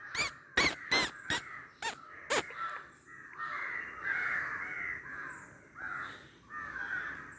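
Animal calls: about six short, loud, pitched calls in quick succession, then a softer, wavering run of calls from about three seconds in.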